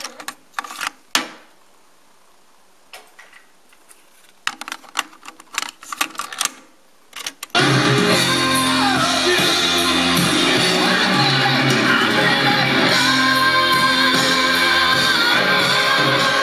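A string of sharp clicks and clunks from a JVC KD-A11 cassette deck's transport keys and eject door, and a cassette being taken out and put in. About halfway through, a music tape starts playing back suddenly and loudly, with singing.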